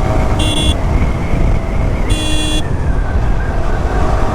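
Steady low road and engine rumble of a motorcycle riding at about 80–90 km/h, picked up by a helmet-mounted lavalier mic modified with foam so that there is almost no wind blasting. A vehicle horn beeps twice, briefly, about half a second and two seconds in.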